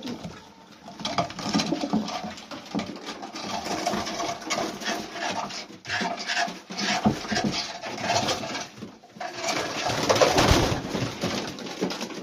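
Several Old Polish carrier pigeons cooing in a loft, among scattered short knocks and scuffles, loudest about ten seconds in.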